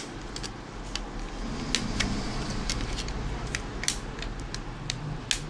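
Scattered sharp clicks, about a dozen at irregular spacing, over a low steady hum.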